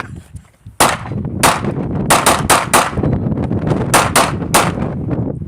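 Gunshots fired in quick succession, about nine of them in irregular groups after a short pause, each sharp crack followed by a brief echo.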